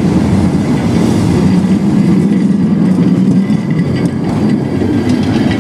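Vintage-style electric street tram passing close by: a loud, steady low rumble of its wheels and running gear on the rails.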